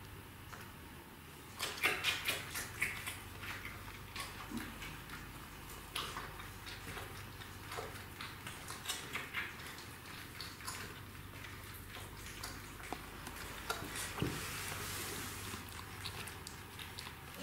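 Golden retriever puppy suckling at its mother's teats: a run of small wet smacking and clicking sounds that starts about two seconds in and goes on irregularly.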